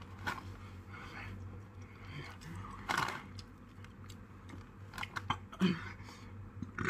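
Crunchy ghost pepper chips being bitten and chewed: scattered crunches and wet mouth noises, with a few short louder bursts.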